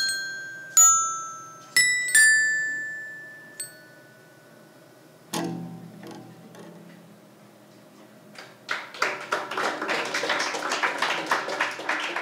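A robot-struck metal-bar xylophone plays four ringing notes, then one lower note sounds about five seconds in. From about nine seconds an audience applauds.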